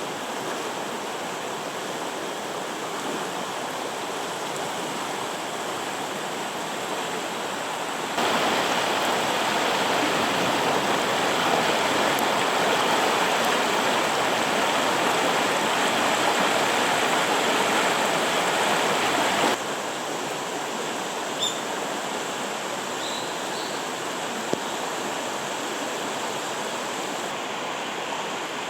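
Mountain stream water flowing with a steady rushing sound; it turns louder suddenly about eight seconds in and drops back about eleven seconds later.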